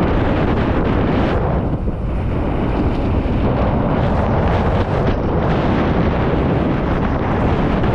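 Wind rushing and buffeting over the camera microphone during a fast mountain bike descent, with the steady rumble and rattle of the bike over rough trail mixed in.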